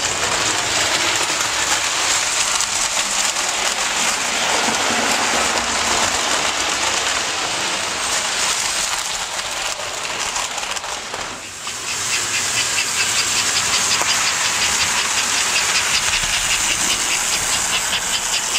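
American Flyer S gauge model trains running: a steady rumble and hiss of wheels on track and locomotive motors, with a fast even ticking joining in about twelve seconds in.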